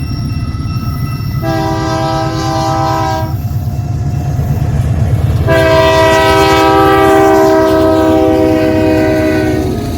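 Locomotive air horn sounding a chord in two blasts: a short one about a second and a half in, and a long one from about five and a half seconds until near the end, sagging slightly in pitch as it fades. Under it runs the steady low rumble of the train.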